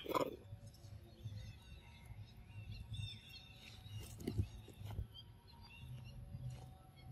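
Outdoor ambience with faint bird chirps and a steady low rumble. A few short sounds come from close by: the loudest is right at the start and another comes about four seconds in.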